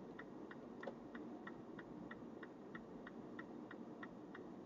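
Steady, even ticking, about three ticks a second, over a low steady hum of road noise inside a moving car.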